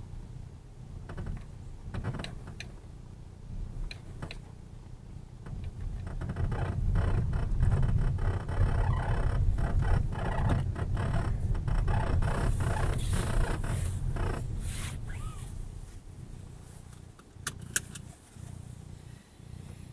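Creaking with rapid clicks and rattles over a low rumble. It builds up about six seconds in and eases off after about fifteen seconds, with a few sharp clicks near the end.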